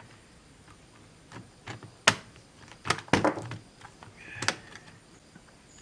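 Sharp plastic clicks and knocks from a laptop's case being handled and snapped into place, a few separate snaps about two, three and four and a half seconds in.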